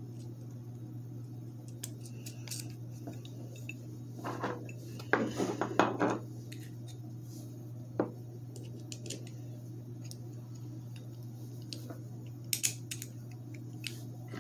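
Small steel puller parts (jaws, nuts and bolts) clinking and clattering against each other as a three-jaw internal puller is put together by hand. There is a burst of clatter about four to six seconds in, a single click around eight seconds, and a couple more clicks near the end.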